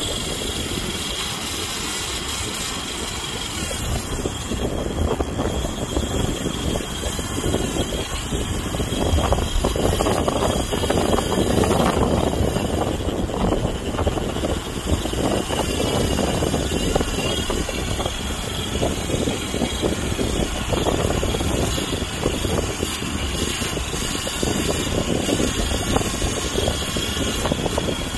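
Steady wind rushing against the microphone, swelling a little partway through, with waves breaking on the beach behind it.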